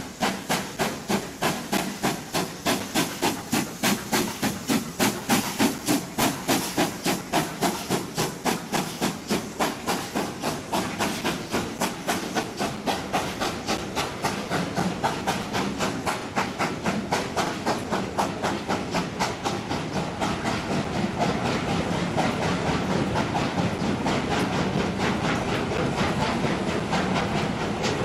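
BR Standard Class 7 'Britannia' Pacific No. 70013 Oliver Cromwell working hard, its two-cylinder exhaust beating about three times a second and quickening. Past halfway the beats blur into the steady rumble of the coaches rolling by.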